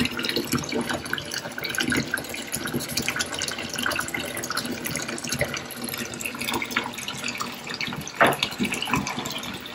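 Bath tap running, with water splashing steadily into a filling bathtub.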